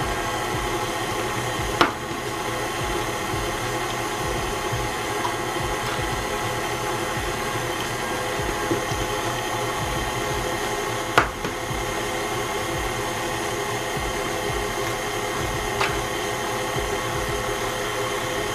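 KitchenAid Classic Plus stand mixer running steadily, its flat beater creaming butter, sugar and eggs in a stainless steel bowl. Two sharp clicks cut through it, about two seconds in and again about eleven seconds in.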